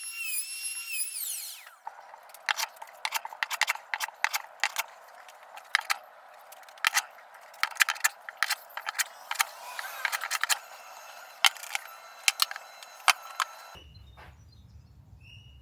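Many irregular sharp clicks and knocks of workshop handling, following a brief high wavering whine near the start.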